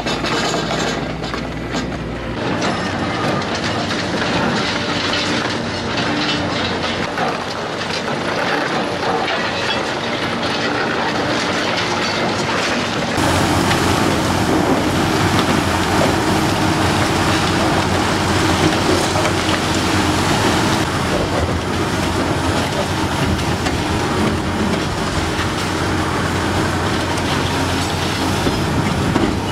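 Hydraulic demolition excavators crushing reinforced concrete with crusher and pulverizer jaws: the machines run continuously while concrete cracks and grinds and steel scrapes. The sound changes abruptly twice, about two seconds in and about halfway through.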